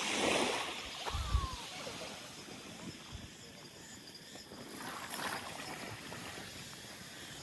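Small waves washing up the shore, one swell of surf at the start and another about five seconds in, with a brief low thump about a second in.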